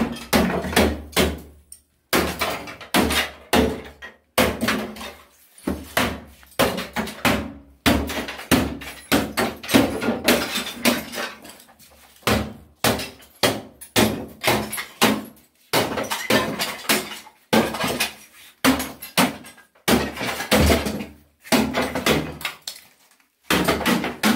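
Hammer blows smashing a bathtub's side panel to pieces, struck over and over in quick runs with short pauses, with the panel cracking and breaking apart.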